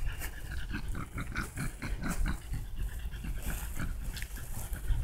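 A French bulldog breathing hard in quick, noisy breaths, several a second, while rolling on its back in the grass.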